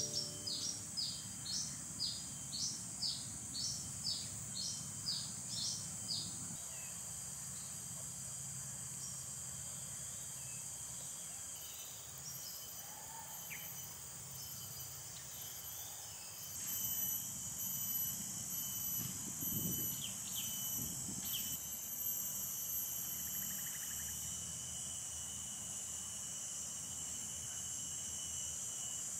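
Outdoor woodland ambience with a bird repeating a short rising chirp about twice a second for the first six seconds. After that, insects keep up a steady high-pitched drone and pulsing trill, with a few faint bird chirps.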